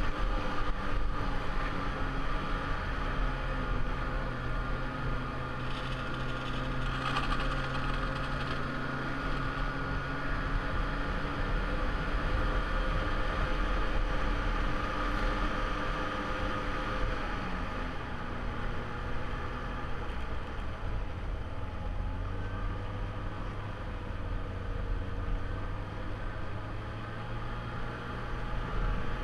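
Snowmobile engine running steadily under the rider while cruising along a trail, its note dropping a little past halfway through.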